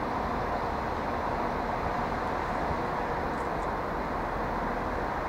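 Steady, even rumble and hum of railway station background noise, with no train moving past.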